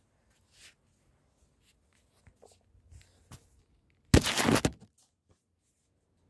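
Phone microphone rubbing against clothing as it is handled: one loud rustling scrape about four seconds in, lasting under a second, among faint scattered clicks.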